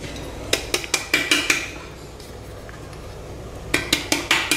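Stainless steel mixer-grinder jar knocked and tapped against a steel plate to empty out ground bread crumbs. There are two bursts of sharp metallic clinks, one early with a brief ring and a second near the end.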